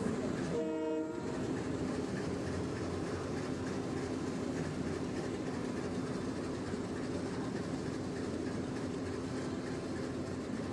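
A diesel-locomotive horn sounds once, briefly, about half a second in, then a steady rumble of a running train goes on.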